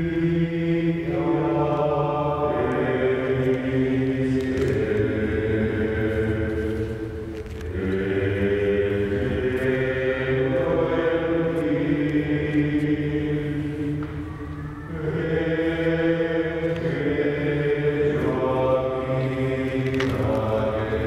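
Voices singing a liturgical chant in long, held phrases, with short breaks between phrases about seven seconds apart.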